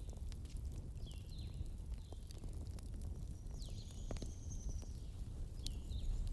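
Wood fire crackling, with sharp irregular pops over a low steady rumble. Short high chirps that drop in pitch come every second or so, and a longer thin whistle sounds midway.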